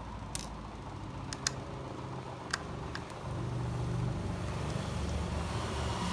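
Several light, sharp clicks of small laptop hard-disk hardware being handled as the drive bracket is unscrewed, over a low steady rumble that grows louder about three seconds in.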